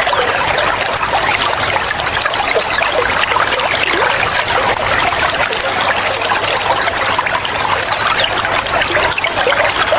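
Flowing water, trickling and splashing steadily, with a small bird's runs of quick, high chirps coming over it: about a second and a half in, again around six seconds in, and briefly near the end.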